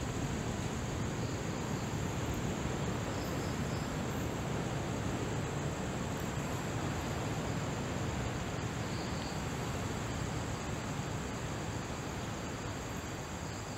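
Steady high-pitched insect chorus over an even, broad hiss of background noise, with a couple of faint short chirps now and then.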